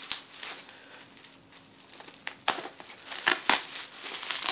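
Plastic bubble wrap crinkling and crackling as it is squeezed and cut open with scissors. It is quieter at first and grows louder and denser with sharp snaps about halfway through.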